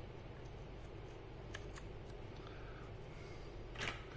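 Faint clicks of a laptop's wireless network card being handled and fitted into its slot, with one sharper click near the end, over a steady low hum.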